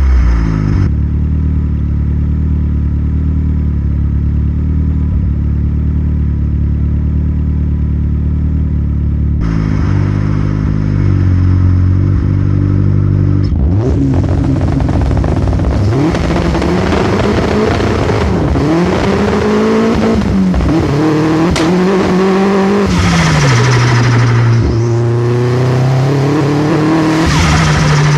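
Astra VXR's turbocharged 2.0-litre four-cylinder engine running steadily, then held at raised revs on launch control about ten seconds in. Around fourteen seconds in the car launches and accelerates hard through the gears, the engine pitch climbing and dropping at each shift, then running steadily near the end.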